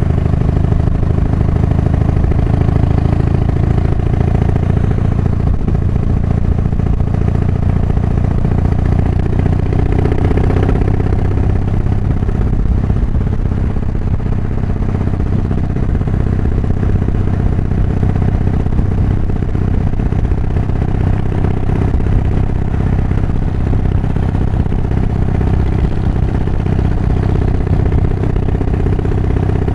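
Harley-Davidson Softail V-twin engine running steadily while riding, with its ignition timing advanced, heard through a microphone inside the rider's helmet.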